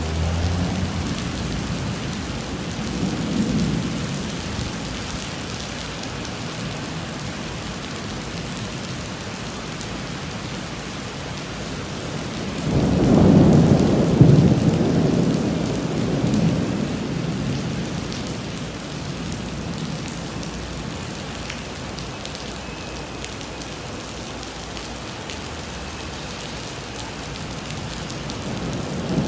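Heavy rain pouring onto pavement with a steady hiss, and thunder rumbling: a short roll a few seconds in, a louder, longer one around the middle, and another building near the end.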